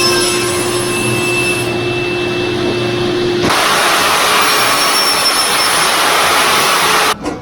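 Trim router running at speed and cutting across a wood surface in a flattening jig. About three and a half seconds in the sound changes abruptly to a brighter, denser hiss, and it stops just before the end.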